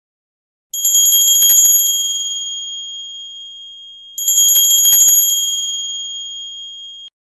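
Bells struck twice, about a second in and again about four seconds in: each time a short burst of jingle-bell shaking over a bright bell tone that rings on and slowly fades. The second ring cuts off suddenly near the end.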